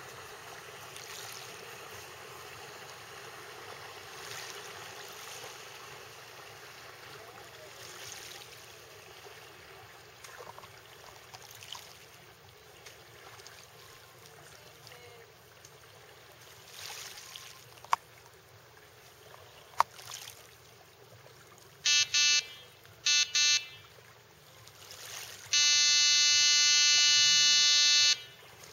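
Boat horn sounding as the boat comes in: two quick double toots, then one long blast of about three seconds near the end. Before it, only a faint steady wash of wind and water with a couple of sharp clicks.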